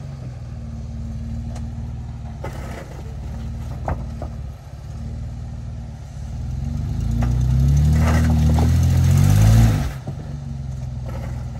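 Jeep Wrangler engine working at low revs as it crawls over rocks, with a sharp knock about four seconds in. From about six and a half seconds in the engine revs up steadily to its loudest, then drops off abruptly near the end.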